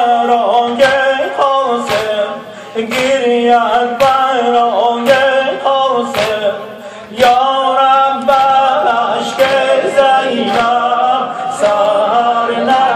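Men's voices singing a devotional chant without instruments, with rhythmic chest-beating slaps (matam) about once a second.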